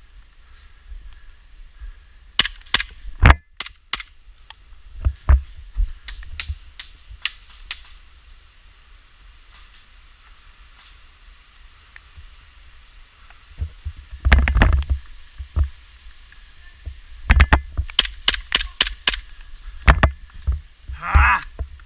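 Airsoft pistols firing in a skirmish: scattered sharp pops, single and in quick strings, with a fast run of shots about two-thirds of the way through.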